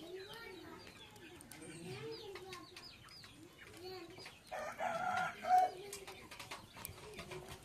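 Chickens clucking and small birds chirping, a mix of short repeated calls. One louder call comes about five seconds in.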